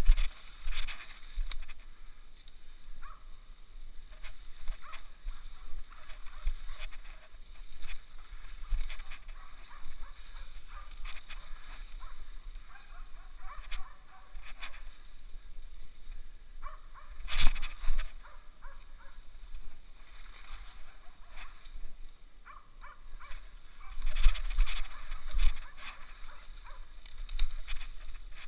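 Footsteps and the swish and crackle of brush, twigs and leaves against clothing as someone pushes through dense forest undergrowth. The rustling comes in uneven bursts, loudest about two-thirds of the way through and again near the end.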